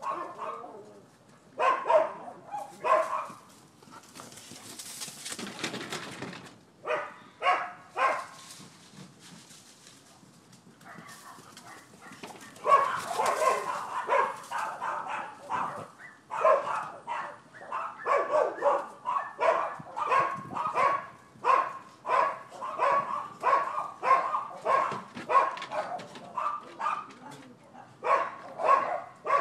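Dogs barking in short runs, then steadily about twice a second through the second half, with a brief rushing noise about five seconds in.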